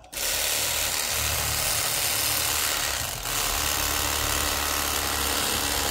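Electric fillet knife running steadily, its motor driving the serrated blades back and forth as they cut through a catfish, with a brief dip in level about three seconds in.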